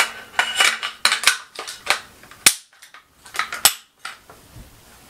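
Sharp metallic clicks and clacks of a Smith & Wesson M&P15 rifle's upper and lower receivers and AeroKnox takedown pins being worked by hand, about a dozen in all. The sharpest snap comes about two and a half seconds in, with a quick pair about a second later.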